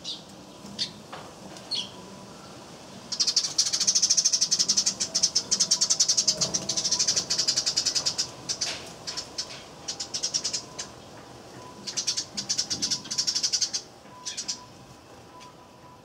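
Eurasian tree sparrows chirping busily: a few single chirps, then a long run of rapid, repeated chirps, followed by shorter runs.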